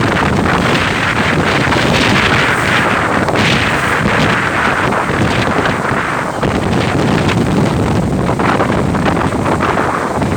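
Strong wind buffeting the microphone, loud and unbroken, full of rapid cracks from a shirt flapping hard in the gusts.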